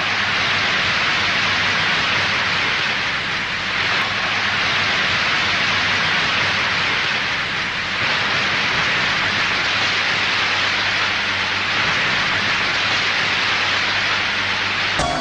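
Sustained applause from a large crowd filling a hall, a steady dense clatter of clapping on an old newsreel recording with a faint low hum beneath.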